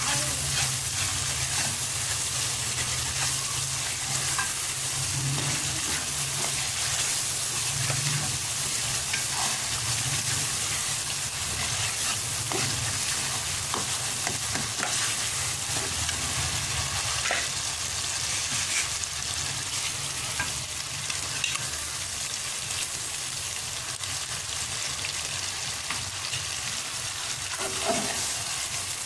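Onion-tomato masala with ginger frying in a metal kadai, sizzling steadily while a metal spoon stirs and scrapes the pan. Near the end there is a brief louder sound as raw chicken liver pieces go into the pan.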